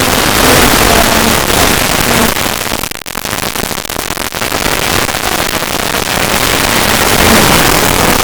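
V6 car engine exhaust running loud with a rough, rapid crackle. Its loudness drops away about three seconds in and builds back up over the following seconds.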